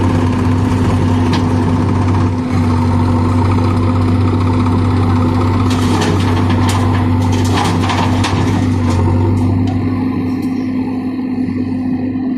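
Diesel engine running steadily under load, with a short spell of rattling clatter in the middle as a backhoe bucket dumps soil and clods into a steel tractor trailer.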